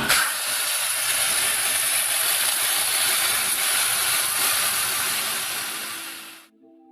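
A motorised machine running steadily with a strong hissing noise, fading out about six seconds in.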